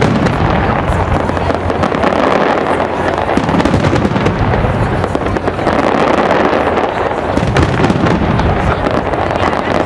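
Fireworks display going off in a dense, continuous barrage of overlapping bangs and crackles with no let-up.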